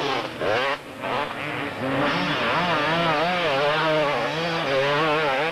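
Two-stroke motocross motorcycle engine racing on the track, revving up and down so that its pitch wavers rapidly and continuously as the rider works the throttle.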